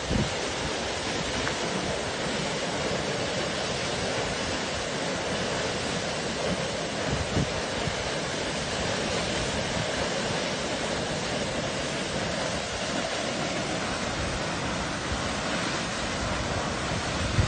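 Muddy flash-flood water pouring over a canyon cliff as a temporary waterfall: a steady, even rushing.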